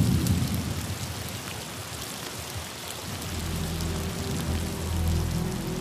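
Heavy rain pouring down in a dense steady hiss, with a low rumble at the start.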